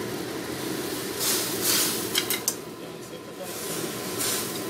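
Slices of food dropped into a hot wok, sizzling steadily with louder hissing surges about a second in and again near the end, and a few quick sharp clicks in between.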